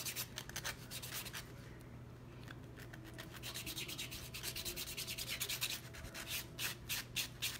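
Nail buffer rubbing back and forth over dip-powder nails in quick, even strokes, pausing for about a second and a half shortly after the start, then picking up again.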